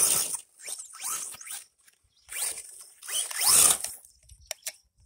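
1/16-scale brushless RC monster truck revving in several short throttle bursts, its 5900kv motor and gears whining up in pitch each time as the tires spin in loose sand.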